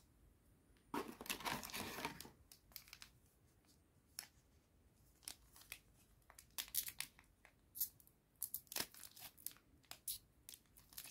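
A foil trading-card booster pack handled and torn open: a dense rustle about a second in, then a long run of short, sharp crinkles and crackles as the foil wrapper is worked and ripped open along the top.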